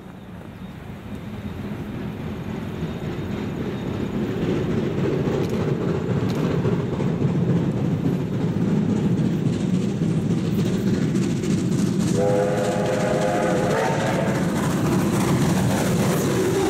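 NZR Ab-class 4-6-2 steam locomotive approaching under steam with its train, the working locomotive and its wheels on the rails growing louder over the first few seconds, then steady as it draws near. About twelve seconds in it sounds its steam whistle for about two seconds.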